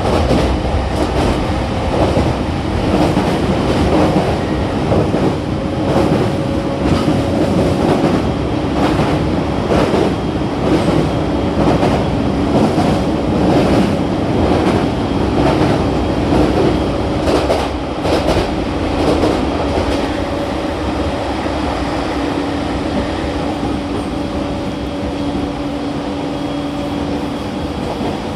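Running sound inside an E231 series 1000 subseries commuter train car: wheels clicking over rail joints under a steady traction-motor hum. The clicking thins out and the noise eases somewhat over the last third.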